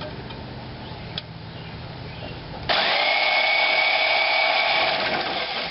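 Bandsaw cutting steel angle iron: a low steady hum at first, then a little under three seconds in a loud, steady high whine with a grinding hiss as the blade bites into the metal.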